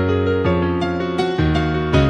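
Background piano music, a gentle, slow piece with sustained chords and a melody changing notes about every half second.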